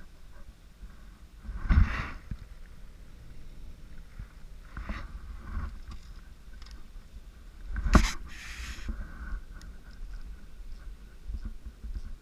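Rod and reel handling noise as a jerkbait is worked and retrieved: faint scattered clicks over a low rumble, with two loud knocks, about two seconds in and about eight seconds in, the second followed by a brief hiss.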